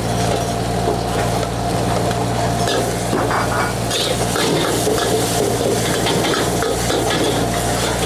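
Food sizzling in a wok while a metal spatula stirs and scrapes it, with scattered clanks of metal on metal over a steady low hum.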